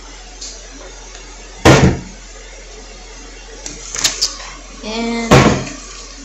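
Two heavy thumps, about a second and a half in and again near the end, with a few sharp clicks between: handling noise from a phone being knocked and gripped against its microphone while it films.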